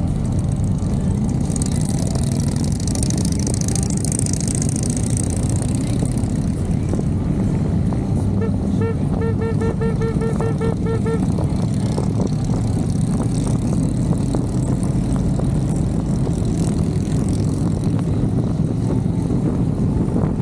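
Motorcycle engines running steadily on a group ride, with wind rushing past. About nine seconds in comes a quick run of about ten short beeps, some four a second.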